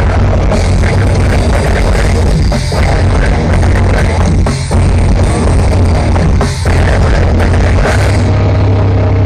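Grindcore band playing live through a large outdoor PA, heard from the crowd: loud, dense, distorted metal with drums, broken by short stops about two and a half, four and a half and six and a half seconds in. Near the end the busy playing gives way to a steady, low sustained droning note.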